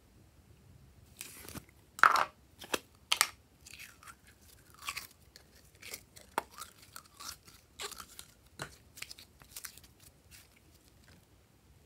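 Glossy slime being kneaded and pressed by hand, giving irregular sticky pops, clicks and crackles, loudest about two and three seconds in.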